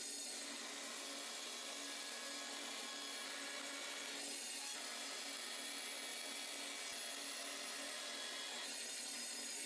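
Band saw running and cutting through a clear plastic sheet: a steady sawing noise over a low, even motor hum.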